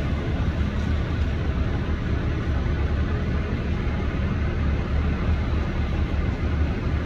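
Heavy diesel machinery running steadily: a continuous low engine rumble with a noisy hiss over it.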